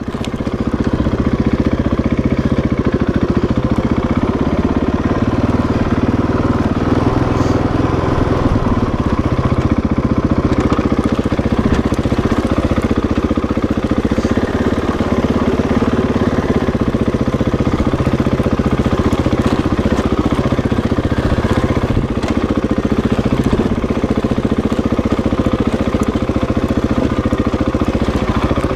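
Husqvarna 701 Enduro's single-cylinder four-stroke engine running steadily as the bike is ridden along a dirt trail, briefly easing off right at the start.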